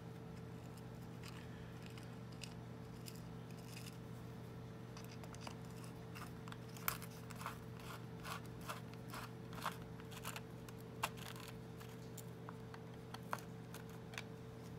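Hand screwdriver driving the secondary screw into a Deform-nut threaded insert set in an aluminium honeycomb panel: irregular small metallic clicks and scrapes, sparse at first and coming thick over the second half, as the screw tightens and sets the insert. A steady low hum runs underneath.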